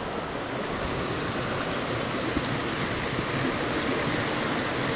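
Steady rush of a stream and its waterfall, an even noise that neither rises nor falls.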